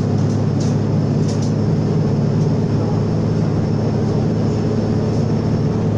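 Mercedes-Benz O500U city bus's diesel engine running steadily under way at an even pitch.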